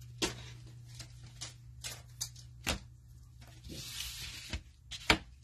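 Trading cards being handled and sorted on a table: scattered light taps and clicks as cards are shuffled and set down, with a soft sliding rustle near the middle.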